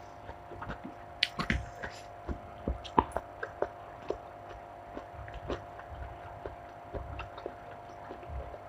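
Eating sounds: scattered soft chewing thumps and small mouth and utensil clicks, irregular, over a steady faint hum.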